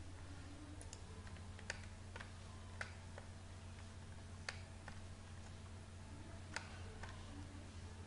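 Faint, scattered clicks of a computer mouse and keyboard, a few at irregular intervals, over a steady low hum.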